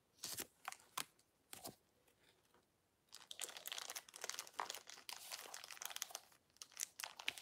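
Faint crinkling and crackling of a small clear plastic wrapper being worked open by hand. A few short crackles come first, then steady crinkling from about three seconds in.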